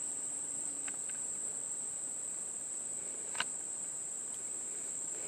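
Steady, high-pitched chorus of insects in woodland, with two faint clicks about a second in and a sharper click a little past three seconds.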